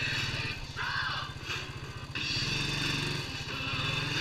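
ATV engine running steadily under way, its exhaust pulse picking up in level about two seconds in, with a higher hiss coming and going over it.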